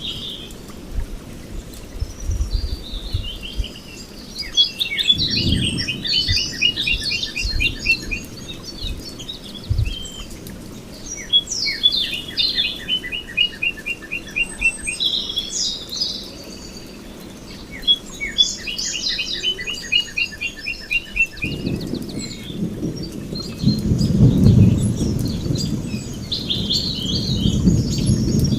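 Several birds singing and chirping, one repeating a fast trill of evenly spaced notes about every six seconds. A low rumble rises in the last third and runs under the birdsong.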